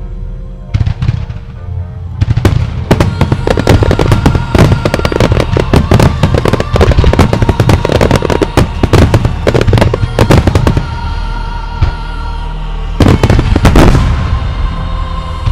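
Starmine fireworks barrage: shell bursts and crackles going off many times a second, densest through the middle, then easing off about eleven seconds in. A second short flurry of bangs comes near the end. Music for the show plays steadily underneath.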